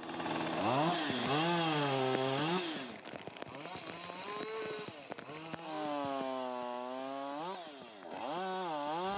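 Two-stroke chainsaw engine revved up and down several times, its pitch swelling and falling back in long pulls of one to two seconds.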